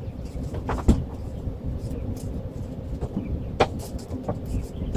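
A few light knocks and clicks at irregular intervals, the sharpest about a second in and again past three and a half seconds, from hands working foam insulation into the opening around a rooftop air conditioner. A steady low rumble runs underneath.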